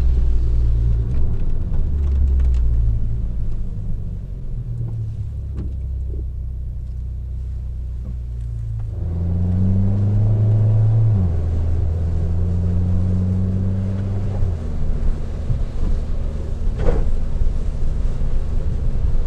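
Fiat 500 Abarth's turbocharged four-cylinder engine and exhaust heard from inside the cabin while driving. The engine note shifts between gears; about nine seconds in it climbs and gets louder as the car accelerates, then drops back a couple of seconds later with a gear change and holds steady.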